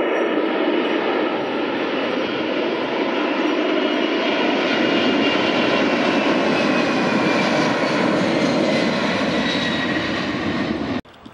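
Boeing 747 freighter's jet engines at takeoff power as it climbs away: a loud, steady rushing noise with a high whine that slowly falls in pitch. It cuts off suddenly near the end.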